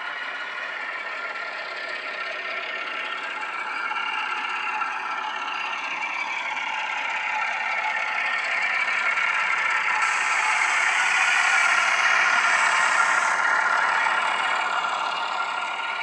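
ESU LokSound decoder playing its Class 08 diesel shunter engine sound through the model locomotive's small speaker as it runs, with some clatter and rattle. It grows louder as the loco and its wagons approach, is loudest about twelve seconds in as they pass close, then eases off.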